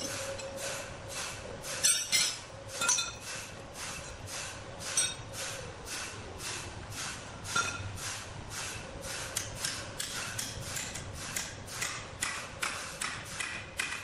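A quick, even series of knocks or clinks, about three a second, over a faint steady hum.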